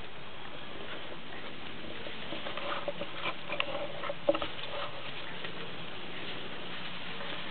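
Bouvier des Flandres puppies giving a handful of short, high squeaks and yips in a cluster about midway, the loudest a sharp one a little after four seconds in, over a steady background hiss.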